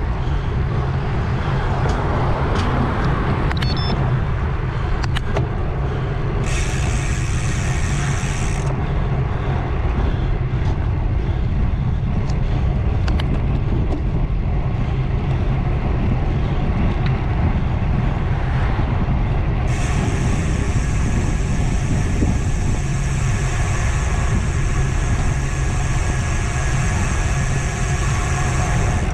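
Bicycle riding on the road, with a heavy, constant rumble of wind and road noise on the helmet- or bar-mounted action-camera mic. Twice a high, even buzz switches abruptly on and off, briefly about seven seconds in and again from about twenty seconds on, typical of the rear freehub ratcheting while the rider coasts.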